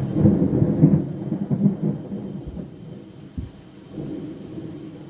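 Thunder rumbling, loudest in the first two seconds and then dying away, with a short low thump a little after the middle, over steady heavy rain.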